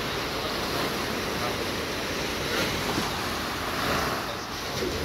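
Small ocean waves breaking and washing up a sandy shore in a steady hiss, with wind rumbling on the microphone.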